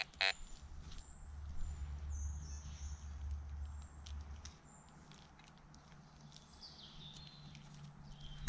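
Fisher F22 metal detector giving a short beep tone just at the start, then faint bird chirps over a low rumble that fades about halfway through.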